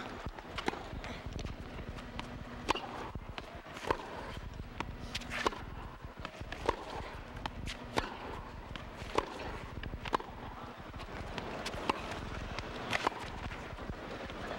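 Tennis rally on an indoor carpet court: tennis balls struck by rackets and bouncing, a sharp pop about every second, over the low steady murmur of an arena crowd.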